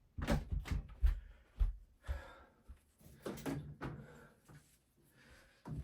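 A string of short, dull thumps and knocks, several in the first two seconds and a few more later, with brief scraping noises between them.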